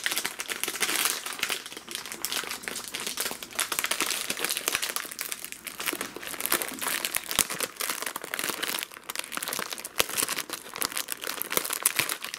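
Plastic Oreo cookie wrapper crinkling steadily and irregularly as it is pulled open by hand and its film peeled back from the cookie tray, with a few sharper snaps.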